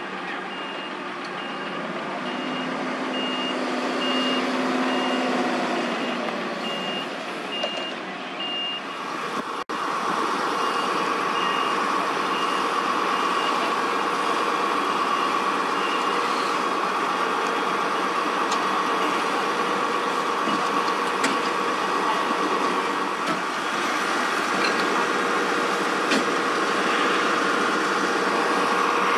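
Fire engines running at the scene, with a reversing alarm beeping at an even pace through roughly the first half. About ten seconds in, a louder, steadier engine drone with a held hum sets in.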